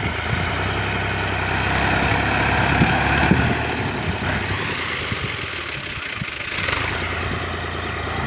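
Farm tractor's diesel engine running steadily, pulling against a taut wire.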